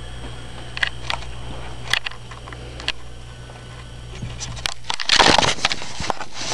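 A few light clicks over a steady low hum, then about five seconds in a loud rustling and scraping: handling noise on the camera's microphone as the camera is moved.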